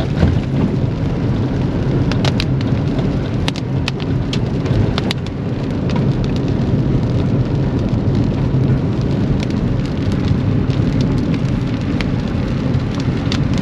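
Steady low drone of a vehicle's engine and tyres heard from inside the cab, with scattered sharp ticks of rain striking the vehicle's body.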